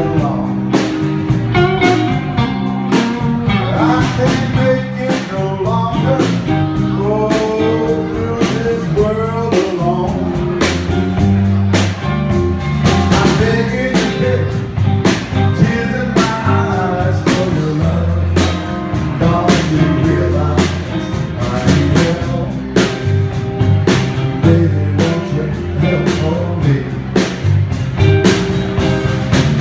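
A live blues band playing, with electric guitar, bass guitar and a drum kit keeping a steady beat under a sung lead line.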